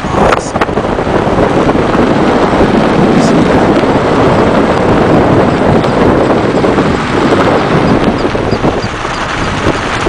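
Wind blowing hard across the microphone: a loud, steady rush, with a few faint clicks in the first second.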